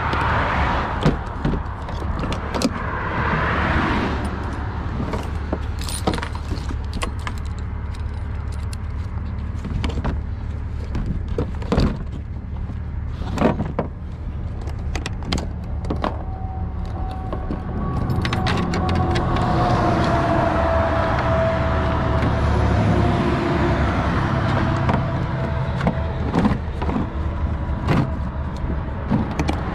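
Steady low vehicle engine rumble with roadside traffic noise. Over it come scattered metal clicks and clinks as a tow light bar and its hooks are fitted to a truck's front bumper. From about halfway through, a steady engine whine slowly drops in pitch.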